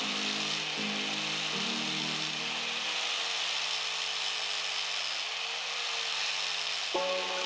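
Electric angle grinder with a disc grinding the steel of a car's engine bay, a steady hiss of metal being ground, mixed under background music.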